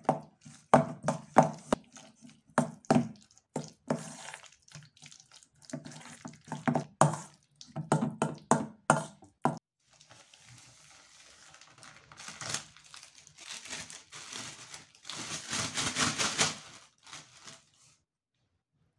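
A metal spoon stirring a thick cream cheese and diced red pepper mixture in a stainless steel bowl, with repeated scraping knocks against the metal for the first ten seconds or so. Then a thin plastic bag crinkles as it is handled, loudest about fifteen to seventeen seconds in.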